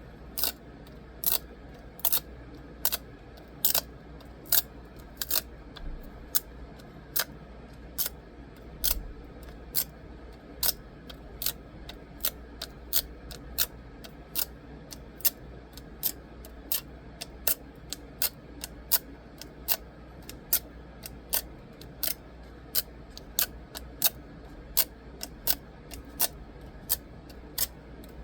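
A long series of sharp, short clicks, evenly paced at a little more than one a second, over a low steady hum.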